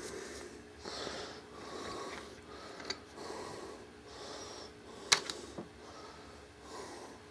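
A person breathing heavily through the nose close to the microphone in slow, even swells, with small handling clicks from the camera rig parts, the sharpest about five seconds in.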